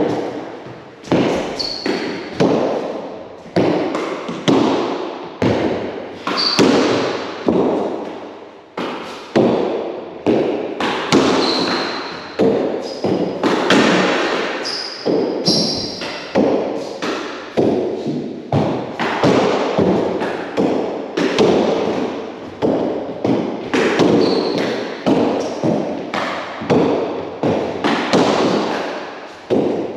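Rugby fives rally: a small hard ball slapped by gloved hands and rebounding off the court's walls and wooden floor, giving a steady run of sharp slaps and thuds about once a second, each echoing around the enclosed court.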